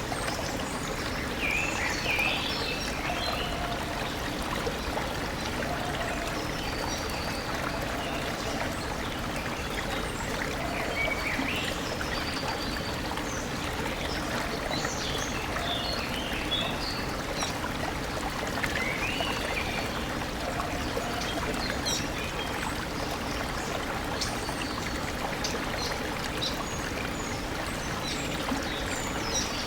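Stream running steadily, with birds chirping briefly now and then.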